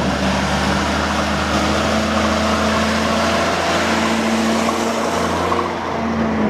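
Military cargo truck driving past close by on a dirt track, its engine running with a steady drone.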